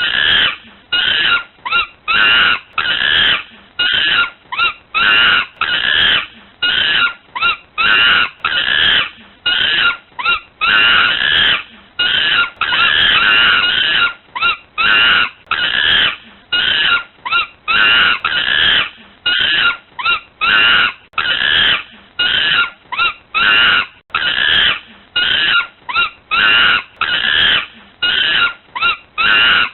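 A monkey screaming: loud, harsh shrieks repeated about twice a second, in runs with brief pauses between them.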